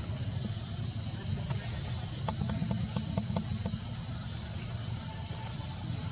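Steady high-pitched drone of insects, over a low rumble. A quick run of faint clicks comes about two to three and a half seconds in.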